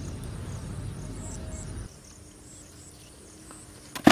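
Steady high insect chirring over a low rumble that stops abruptly about two seconds in. Near the end comes one sharp knock as a fish is dropped into a plastic tub.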